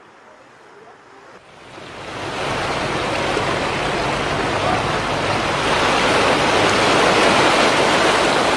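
Steady rush of harbour water and wind, swelling in about a second and a half in and then holding loud, with a faint low hum beneath it.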